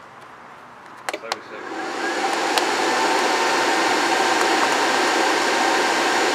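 Two sharp button clicks on a DSR Industrial Series battery charger, then the charger's cooling fan spins up within about a second to a loud, steady whoosh as it starts charging.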